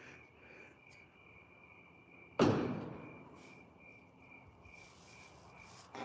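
Crickets chirping steadily in the background, with one sudden loud thud about two and a half seconds in that dies away over about a second.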